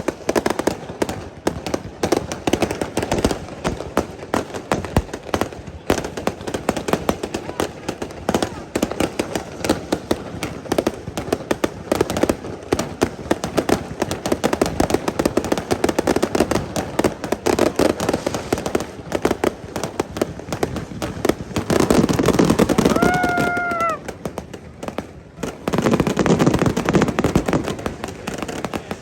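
Fireworks display: dense, rapid crackling and popping from bursting aerial shells, with louder stretches about two-thirds through and near the end.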